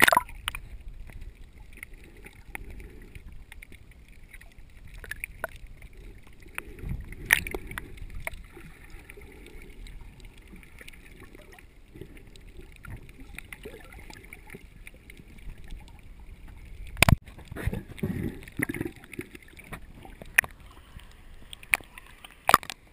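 Seawater sloshing and gurgling around a camera in a waterproof housing as it bobs at the surface and dips under, heard muffled, with irregular knocks and splashes, the loudest about three-quarters of the way through.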